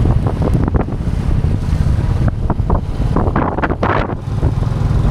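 Wind buffeting the camera microphone: a heavy, steady low rumble with crackle, a stronger gust a little after three seconds in.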